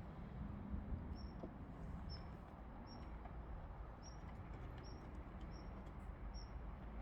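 Outdoor background with a steady low rumble and a short, high chirp repeating about once or twice a second, from a small bird or insect.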